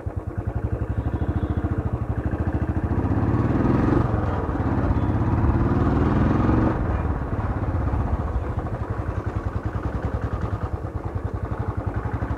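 Royal Enfield Bullet single-cylinder motorcycle engine running with an even beat as it is ridden. The revs climb twice, between about three and seven seconds in, then fall back to a steady beat.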